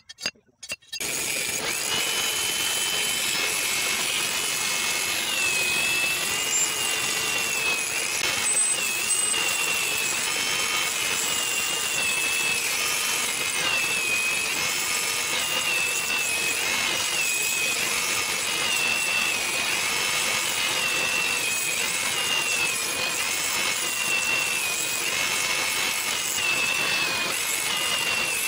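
Electric drill clamped in a drill stand starts about a second in and runs steadily, its bit cutting into steel flat bar with a wavering high squeal.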